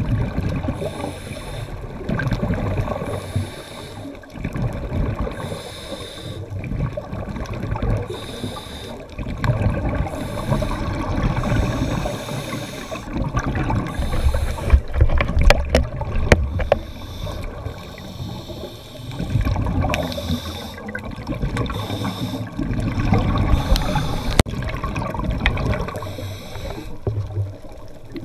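Water splashing and rushing past the hulls of a sailing catamaran under way, swelling and easing in irregular surges.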